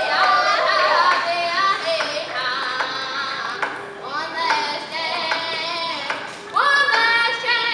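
A boy singing a Native American hand drum song in a strained, high voice, with the beat of a hide frame hand drum struck with a stick. The melody holds notes and steps down, then about six and a half seconds in he slides up into a loud new high phrase.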